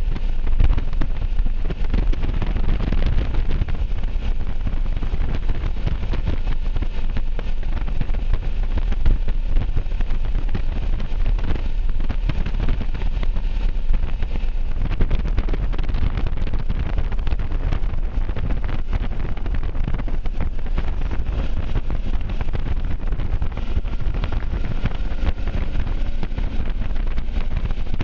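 Wind rushing over the microphone of a moving motorcycle: a steady low rumble with the motorcycle's engine and road noise beneath it.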